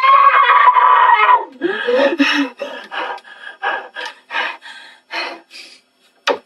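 A boy's long, high, held scream that breaks off about a second and a half in. It is followed by a fast run of short, harsh bursts, about two a second, as he lunges at his computer keyboard.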